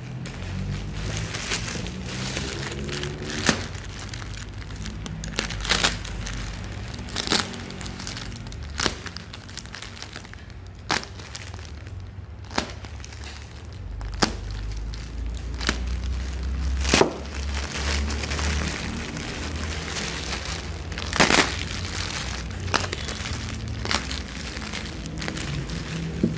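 A tape-wrapped plastic parcel being cut and pulled open: sharp crackles and snaps of plastic and packing tape, one every second or two.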